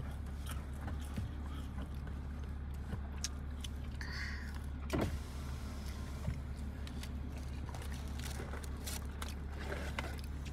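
Steady low hum inside a car cabin, with scattered small clicks and rustles and a brief sweeping noise about five seconds in.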